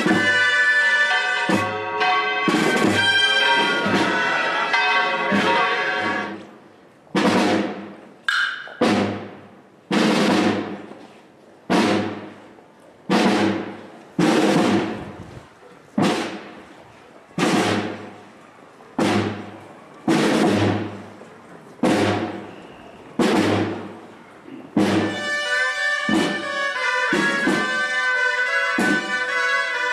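Processional band of drums and brass playing a march, which breaks off about six seconds in. Single percussion strikes follow, about one every second and a half, each ringing out and fading. The full band comes back in near the end.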